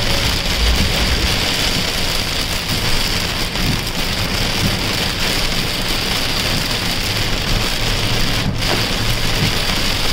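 Heavy rain hitting a car's roof and windshield, heard from inside the cabin as a steady hiss over a low rumble from the moving car on the wet road.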